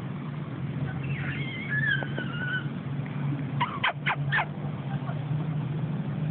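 Puppy whining in high, wavering tones, then four quick high yips near the middle, over a steady low hum.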